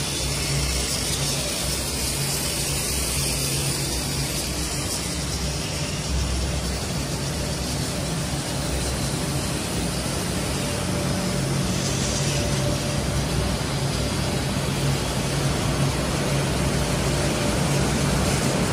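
Extrusion laminating machine running: a steady low hum under an even hiss.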